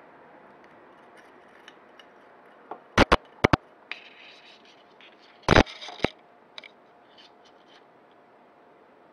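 A coiled steel wire saw with plastic finger rings being unwound by hand. Four quick sharp clicks about three seconds in, a scraping rustle of the wire, then a louder clatter about halfway through.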